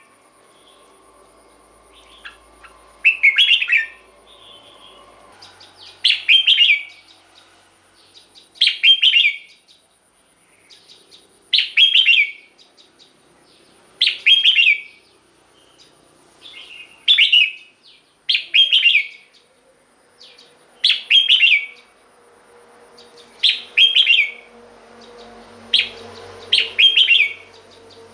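Red-whiskered bulbul singing short, bright, warbling phrases, about one every two to three seconds.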